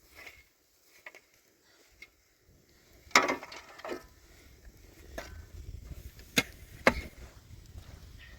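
A few sharp knocks at uneven intervals, the loudest just after three seconds in and two more close together near the end.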